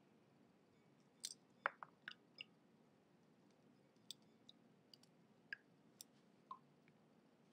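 Pomegranate seeds being pried loose from the rind and pith by fingers: scattered small crackles and clicks, a quick cluster of them about a second in, then sparser ones.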